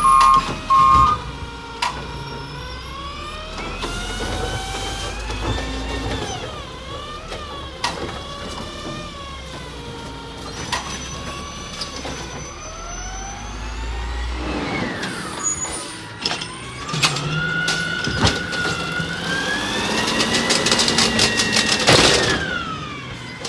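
Garbage trucks running, with a whine that slowly rises and falls in pitch as the engine speed changes. The sound changes abruptly about two-thirds of the way through as a different truck takes over, and a loud rush of noise comes near the end.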